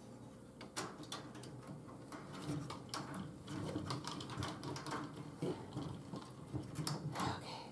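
Chicken wire being handled against a wooden shelf frame: scattered light clicks and rattles with rustling between them, a few sharper clicks near the end.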